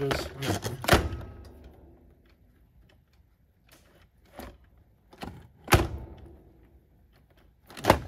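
Hard plastic knocks and clicks as a Roomba 600-series robot vacuum is pushed onto its charging dock and shifted about by hand: a sharp knock about a second in, a few light clicks, another sharp knock just before six seconds, and a third near the end as it is lifted.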